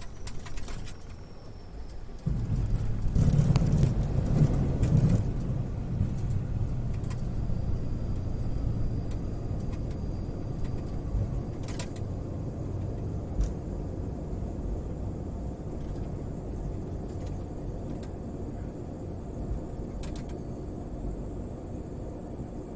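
Dash 8 Q400 turboprop airliner touching down and rolling out on the runway, heard from the cockpit. About two seconds in, a loud low rumble comes in suddenly. It is loudest for a few seconds, then eases off gradually as the aircraft slows.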